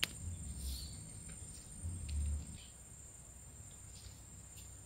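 Insects droning steadily at a high pitch, with a low rumble of the camera being handled near the start and about two seconds in.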